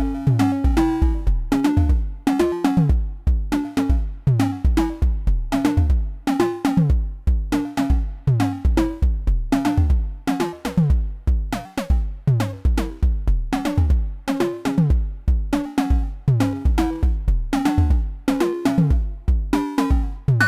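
Slim MPS analogue percussion synth modules, a eurorack version of Thomas Henry's Mega Percussive Synth, playing a looping drum pattern. It has deep kick-like thumps and pitched drum hits whose pitch drops quickly after each strike, several hits a second.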